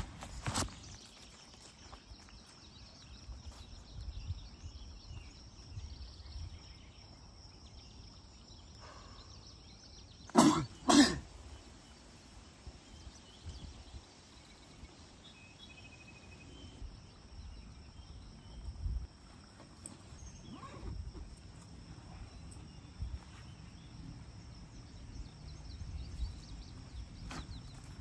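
Outdoor ambience of footsteps through grass and brush, under a faint steady high-pitched drone. Two short coughs come close together about ten seconds in.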